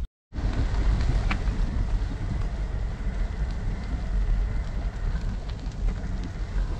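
Wind buffeting the microphone as a steady low rumble while riding a bicycle, with the crackle of tyres rolling over a dirt path strewn with leaves.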